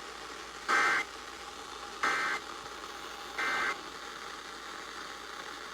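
Emergency Alert System End-of-Message data tones: three short, identical two-tone warbling bursts about a second and a third apart, marking the end of the severe thunderstorm warning, over a steady radio hiss.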